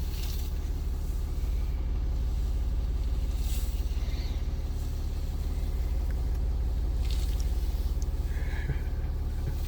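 Land Rover Discovery 4 engine idling with a steady low rumble.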